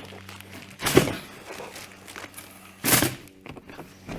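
Two brief knocks from parts and packaging being handled, about two seconds apart, over a faint steady hum.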